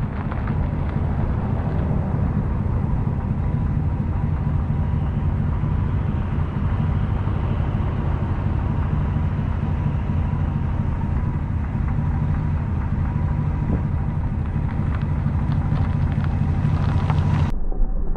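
A 1980 Pontiac Trans Am Turbo's turbocharged 4.9-litre V8 runs steadily at low speed as the car creeps forward, a deep even rumble. Near the end the sound turns suddenly duller.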